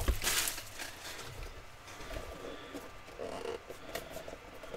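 Plastic shrink-wrap crinkling and a small cardboard trading-card box being handled as it is worked open. A sharp click at the start, then quiet rustling with a few light ticks.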